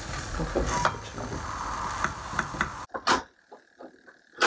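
Diced bacon and vegetables frying in a stainless steel pot, stirred with a wooden spoon that scrapes and knocks against the pot. About three seconds in the sound cuts to a kitchen knife chopping pumpkin on a wooden board: two sharp chops with small clicks between them.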